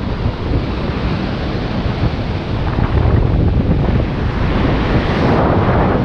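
Ocean surf breaking and washing over shoreline rocks, with wind buffeting the microphone. A wave surges in and grows louder about five seconds in.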